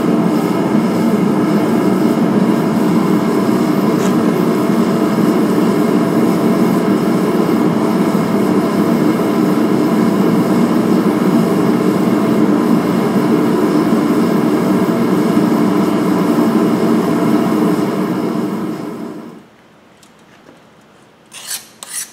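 Propane forge burner running, a loud, steady rush with a hum, which cuts off about nineteen seconds in. Just before the end, a file starts scraping across the freshly quenched blade to test whether it has hardened.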